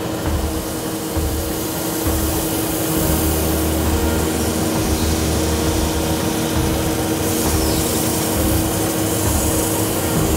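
Woodturning lathe running while sandpaper is pressed against a spinning wooden kokeshi doll piece to polish it: a steady motor hum under an even hiss of sanding.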